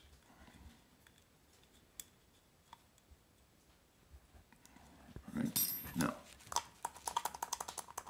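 Light clicks and ticks from small parts of an Orphan Espresso Fixie hand coffee grinder being worked by hand with a small screwdriver while its alignment screws are loosened. There are a couple of faint single ticks in the first seconds, then a quick run of clicks and small knocks from about five seconds in.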